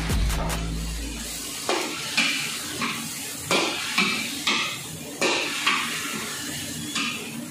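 Metal spatula scraping and clanking against a large steel wok as chicken pieces are stir-fried, a stroke about every half second.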